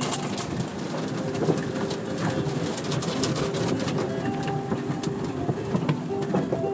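Soft-cloth curtain strips of an automatic car wash slapping and dragging over the car, with many quick slaps and a steady wet wash of noise, heard from inside the car.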